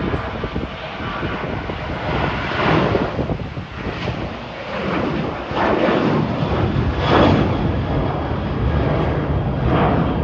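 Airliner engines at high power: a loud, rumbling roar that swells and eases in several surges.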